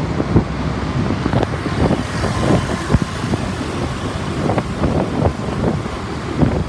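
Wind buffeting the microphone over the steady rumble of engines and road noise, heard from a moving motorbike in heavy motorbike traffic.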